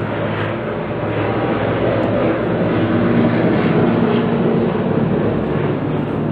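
A loud, steady mechanical drone with a constant low hum, swelling slightly around the middle.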